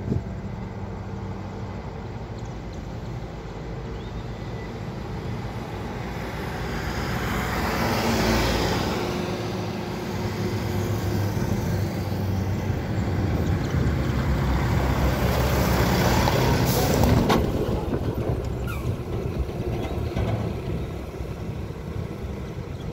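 Heavy diesel tipper lorries and road traffic: a steady low engine drone underneath, with passing vehicles swelling about eight seconds in and again from about thirteen to seventeen seconds. A short loud hiss of air, as from a truck's air brakes, comes about seventeen seconds in.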